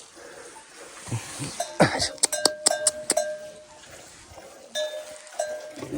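A metal bell clanking: a quick run of strikes about two to three seconds in, each ringing briefly, then a couple more strikes near the end.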